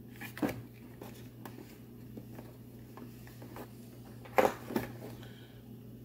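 A few sharp clicks and knocks from hands handling an all-in-one computer's hinged stand and plastic back cover, the loudest about four and a half seconds in, over a faint steady low hum.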